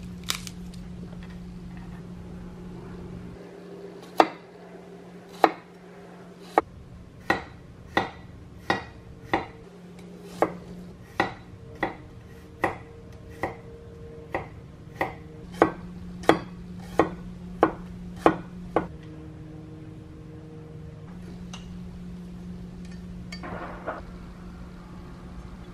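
Chef's knife chopping garlic cloves on a wooden cutting board: about twenty sharp knocks, roughly one and a half a second, starting a few seconds in and stopping well before the end. A steady low hum runs underneath.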